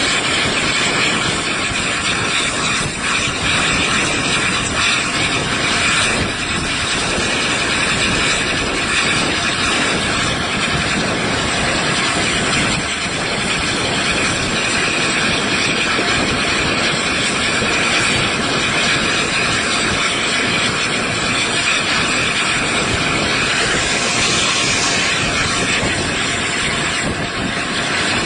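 Steady rush of wind on a microphone held out of a carriage window, over the running noise of a train hauled by the steam locomotive Tornado, an LNER Peppercorn A1 Pacific.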